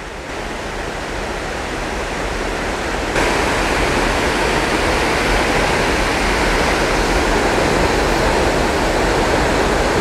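Snake River water pouring over a long low dam and tumbling across the rocks below it: a steady rushing that steps up louder about three seconds in.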